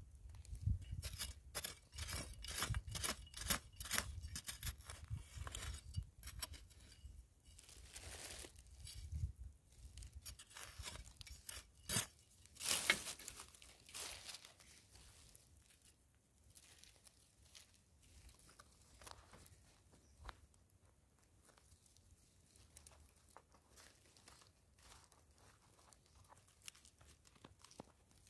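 Metal digging spade (a Thai sia) scraping and chopping into dry, crumbly soil in quick repeated strokes, with one louder scrape about halfway through. After that come only faint scratching and rustling of soil and dry leaves as gloved hands dig into the hole.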